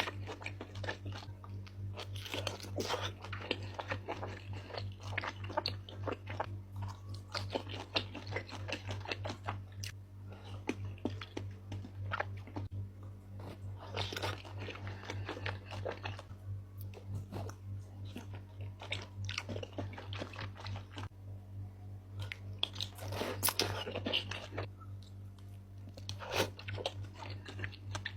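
Close-miked mukbang eating sounds: a person biting and chewing a mouthful of seblak with beef tongue, with irregular clicks and wet mouth noises coming in bursts. A low steady hum runs underneath.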